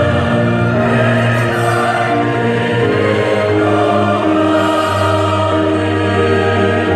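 A choir singing with orchestral accompaniment, with long held chords.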